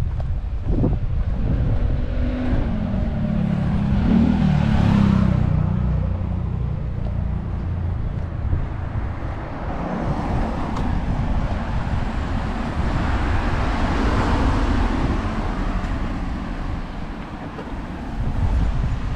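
Cars passing on a residential street: one goes by about four seconds in with its engine note audible, and another passes around fourteen seconds in, over a steady low background rumble.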